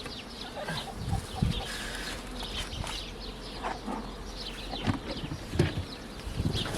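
Wind rumbling on the microphone, with a few dull knocks of hive parts being handled and birds calling faintly in the background.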